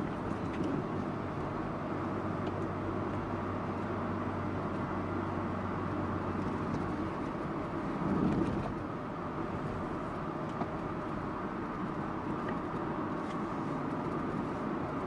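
Subaru Impreza Sports Wagon (GG2) running, heard from inside the car: its flat-four engine's steady low hum under road and cabin noise, swelling briefly about eight seconds in.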